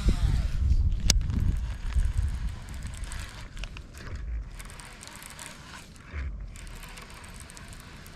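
A baitcasting reel being cranked to retrieve a lure, with wind rumbling on the microphone, louder in the first few seconds. A single sharp click about a second in.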